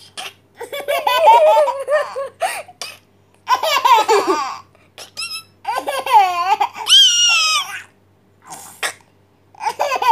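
Baby laughing hard in repeated bursts, with a high squeal near the middle and sharp breaths between the laughs.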